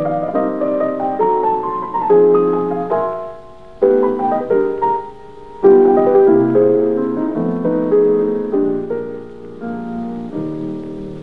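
Solo piano music playing a slow melody over chords, with notes ringing out and two short pauses where the sound dies away.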